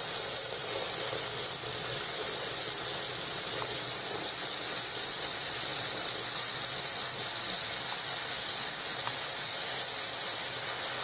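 Water running steadily from a kitchen tap into the sink, an even rushing hiss.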